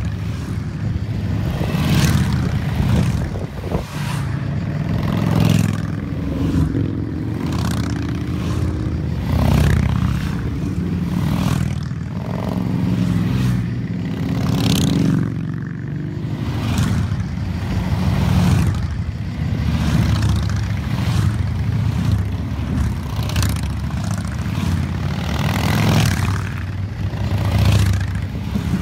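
A column of Harley-Davidson V-twin cruiser motorcycles riding past one after another. A deep, continuous engine rumble swells each time a bike goes by, every two to four seconds.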